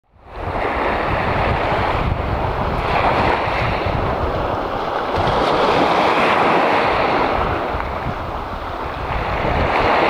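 Small sea waves breaking and washing up the beach, the surf swelling every few seconds, with wind buffeting the microphone in a low rumble. It fades in at the very start.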